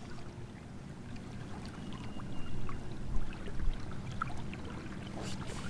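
Water lapping and trickling against a kayak hull, with scattered small knocks and taps as a fish is held on a plastic measuring board, two of them louder a little past the middle.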